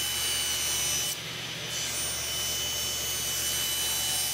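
Table saw running and ripping quarter-inch plywood into strips: a steady high tone over a low hum with a hiss of cutting. The hiss drops away briefly about a second in.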